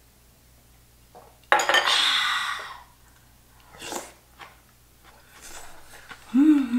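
Eating sounds: a loud slurp of hot stew from a spoon, lasting about a second, then a spoon clinking on a bowl and small eating sounds, ending in a short hummed "mmm" that rises and falls.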